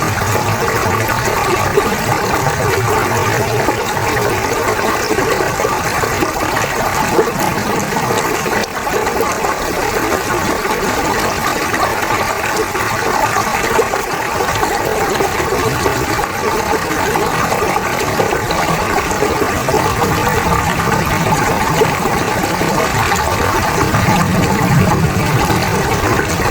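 Fast-flowing river water rushing steadily, a loud, continuous churning with no breaks.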